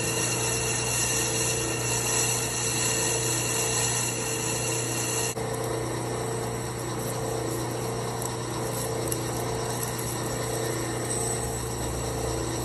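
South Bend metal lathe running while its tool bit faces the end of a turned metal oil cap: a steady hum with the hiss of the cut as chips curl off. The higher hiss drops away about five seconds in.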